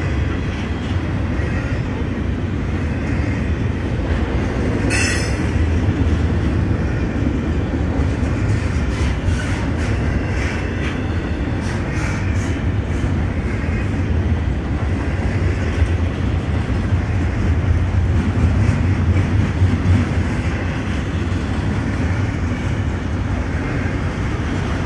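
Double-stack intermodal freight train rolling past: a steady, loud rumble of container-laden well cars on the rails, with wheels clicking over rail joints. A single short, sharp metallic sound comes about five seconds in.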